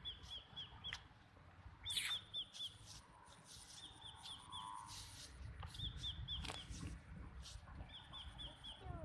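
A bird calling in short runs of about five quick chirps, repeated every couple of seconds, over a faint steady high whine. A brief sharp sound about two seconds in is the loudest moment, and another comes near six and a half seconds.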